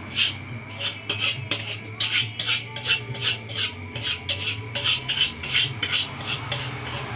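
Metal spatula scraping and tossing fried rice in a wok with quick, even strokes, about three to four a second, over a low steady hum.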